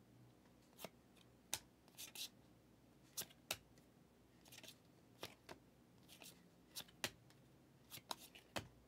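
Faint flicks and soft snaps of football trading cards being slid off the front of a stack and tucked to the back one at a time, about a dozen short, irregular clicks.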